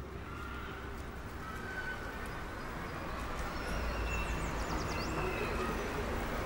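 Steady outdoor ambience: a low rumble under an even hiss, with a few short high chirps about four seconds in.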